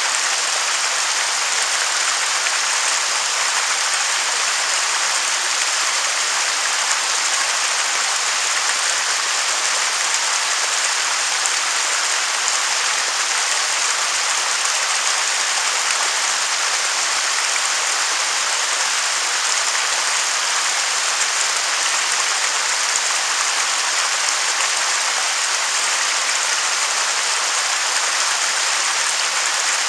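Waterfall: a steady rush of falling water, mostly a high hiss with little low rumble, unchanging throughout.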